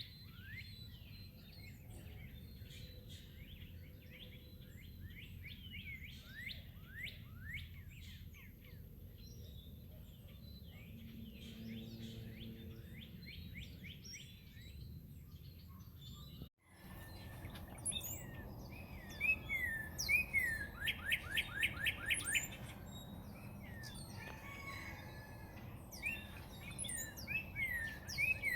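Many small birds chirping and calling, with short downward-sliding chirps. An abrupt cut falls about halfway through. After it the calls are louder, including a quick run of repeated notes.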